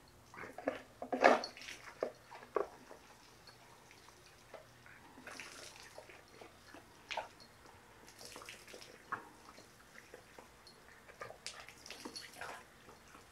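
A dog working a pedal-operated outdoor drinking fountain: several short spurts of water hiss up each time the paw pedal is pressed, between wet splashes and snaps as the dog bites and laps at the jet.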